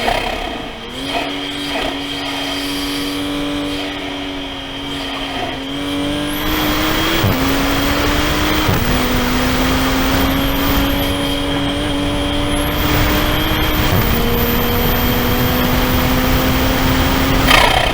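A Toyota GR Supra's engine heard from inside the cabin on track. Its note climbs slowly through long pulls and drops sharply a few times at shifts or lifts, over a steady rush of road noise that grows louder about six seconds in.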